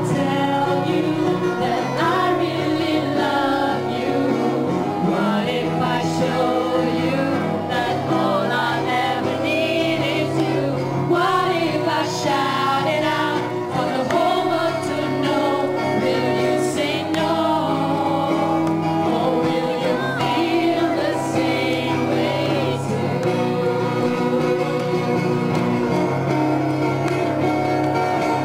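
Acoustic band performing a song: singing over a steady guitar-based accompaniment.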